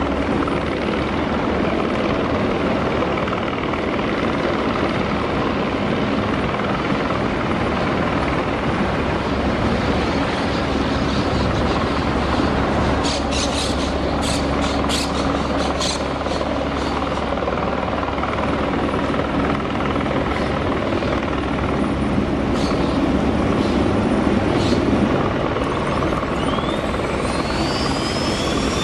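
Steady background rumble with a run of sharp clicks about halfway through. Near the end the rising whine of the Airbus H135's turbine engine begins, the start-up spooling up while the rotor is still at rest.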